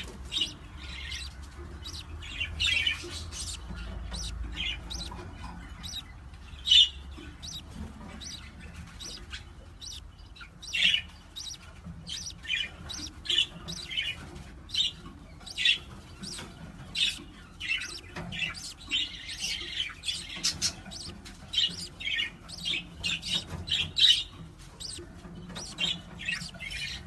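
Parrot chirping and squawking in many short, sharp calls, several a second at times, with one louder call about seven seconds in.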